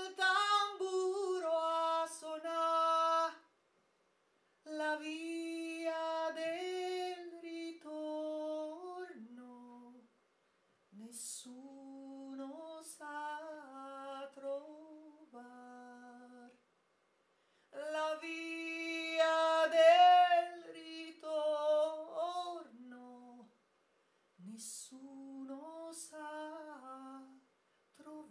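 A woman singing unaccompanied into a handheld microphone: a song of the First World War, sung as held, stepping notes in several long phrases with short breath pauses between them.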